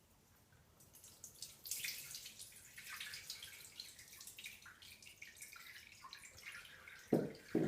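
Whole milk poured onto the hair and scalp, splashing and dripping irregularly, starting about a second in. Two short, louder low sounds near the end.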